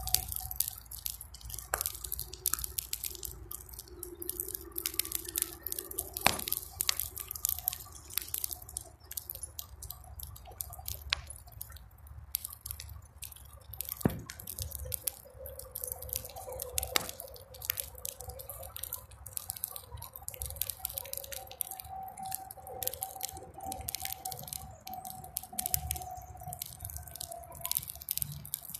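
Bonfire of weeds and horse manure crackling, with many irregular sharp pops and snaps, and faint wavering whistling tones beneath.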